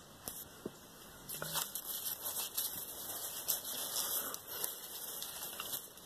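Light rustling and crackling with scattered small ticks, starting about a second in: the sound of things being handled close to the microphone.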